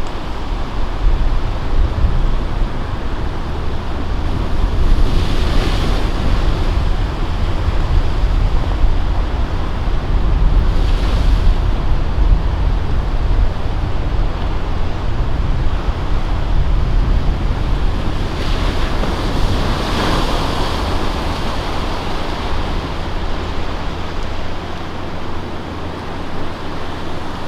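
Ocean surf washing steadily, with waves breaking in swells about five, eleven and twenty seconds in, under heavy wind rumble on the microphone.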